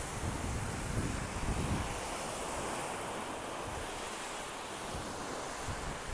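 Sea surf washing onto a beach, a steady wash of noise, with wind buffeting the microphone in low gusts during the first couple of seconds.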